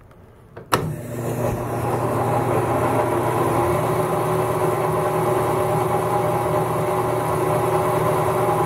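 Logan 825 metal lathe switched on with a click, its electric motor and belt-driven spindle spinning up over about a second, then running steadily at top pulley speed, around 1,400 RPM.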